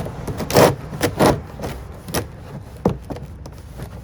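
Plastic oil drain container being closed up and handled: two loud scraping knocks in the first second and a half, then a few lighter clicks.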